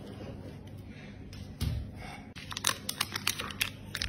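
Crinkling and crackling of a stiff plastic candy package being handled, a quick run of sharp crackles from about halfway through, after a soft thump.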